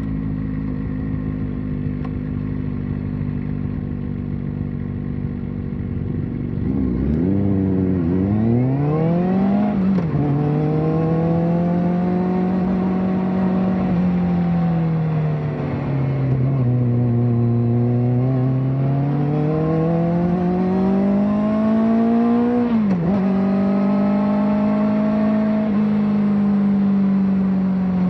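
Kawasaki ZX-4RR's 399 cc inline-four through a slip-on exhaust. It holds a steady note at first, then revs up hard with two quick climbs and sharp drops, as in fast upshifts, about a quarter of the way in. The revs then swell, ease off and rise again, with another sharp drop and climb near the end.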